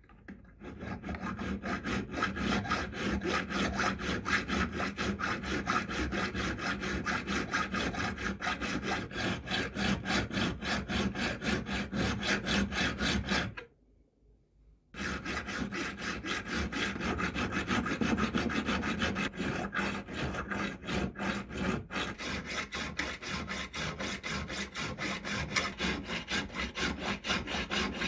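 Hand file rasping back and forth on the steel blade of an M1891 Mosin-Nagant socket bayonet, reforming the ridges near the tip, in quick short strokes. The filing stops for about a second and a half near the middle, then carries on.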